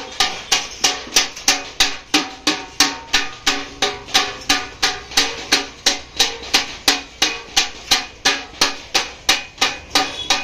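Small hand hammer striking the rim of a galvanized sheet-steel tub held over a stake, in steady, even blows about three a second. Each blow gives a sharp metallic clank with a short ring.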